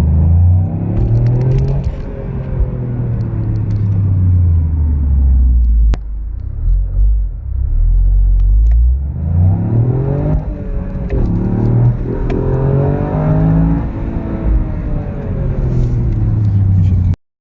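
Toyota GR Yaris 1.6-litre turbocharged three-cylinder engine pulling under acceleration, with an HKS Power Editor boost controller fitted. The revs rise and fall twice, easing off for a few seconds in the middle, dipping sharply once about ten seconds in as it shifts gear, and the sound cuts off abruptly near the end.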